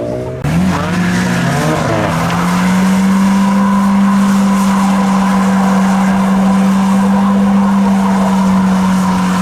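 A car engine revving up, then held at steady high revs while its tyres squeal and skid in a smoky burnout.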